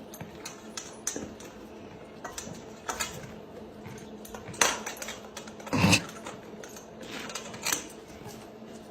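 Irregular light clicks and clatters of small hard objects knocking together, with a few louder knocks around the middle.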